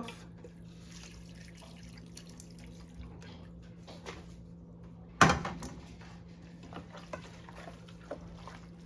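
Chicken broth dripping and splashing in a pot, with light clicks of a utensil. There is one louder clank against the pot about five seconds in, over a steady low hum.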